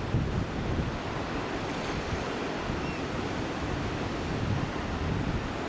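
Ocean surf washing over and around shoreline rocks, a steady rush, with wind buffeting the microphone.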